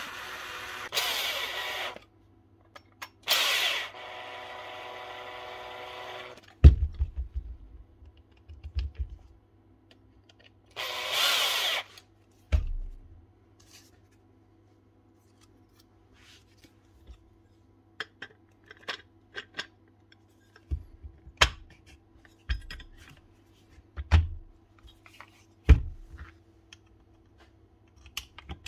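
Cordless drill-driver running screws in three short bursts, one held for about three seconds at a steady pitch. After that come scattered clicks and knocks of small metal and plastic tool parts being handled and set down.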